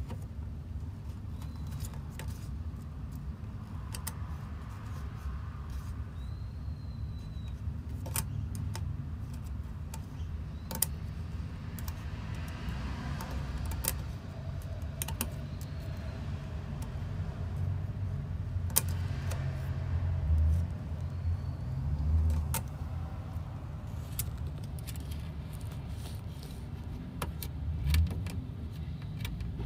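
A pet turtle's claws and shell scrabbling against a plastic case: scattered sharp clicks and scrapes, with a few duller, louder knocks about two-thirds of the way in and near the end, over a steady low rumble.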